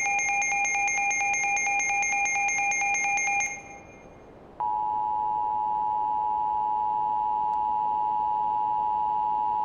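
Electronic alert tone pulsing rapidly, about eight beeps a second, cuts off about three and a half seconds in. About a second later the Emergency Alert System attention signal starts: a steady two-tone drone, held without a break.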